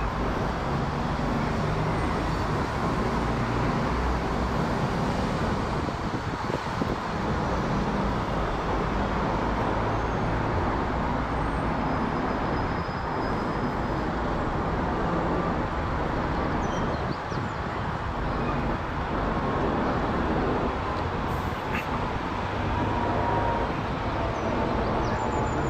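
Boeing 777-300ER's two GE90-115B turbofan engines passing low overhead: a steady, deep jet roar.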